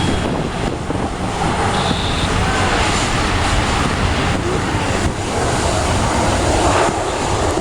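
Jet airliner engines, a steady rumble.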